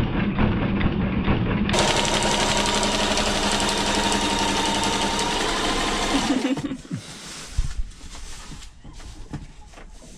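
Sewing machine running fast, rattling through stitches in bimini fabric, with a steady whine under the needle's rattle from about two seconds in. It stops about six seconds in, leaving a few light knocks.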